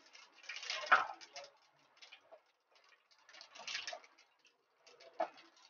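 Mustard and fennel seeds crackling and sputtering in hot mustard oil in a metal kadhai, in several spurts. There is a sharp knock of a utensil against the pan about a second in, and a wooden spatula stirs the seeds.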